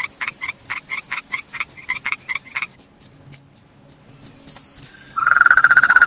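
Night chorus: crickets chirping high in a fast, even rhythm, about five chirps a second. A frog gives a quick run of calls in the first half, and a continuous frog trill starts near the end.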